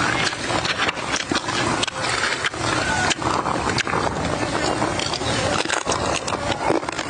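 Close-miked eating sounds: wet chewing, smacking and crunching of raw crab chunks in a spicy, sour sauce, with many small clicks and crackles from lips and crab shell.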